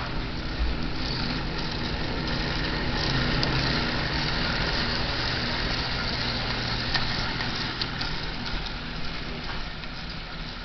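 Marx 897 toy steam locomotive, fitted with a 6-volt DC motor, running on tinplate track while pulling a string of Lionel cars. There is a steady low motor hum and the rolling of wheels on the rails, with faint clicks, growing a little louder about three seconds in and easing toward the end. The motor runs smooth and quiet.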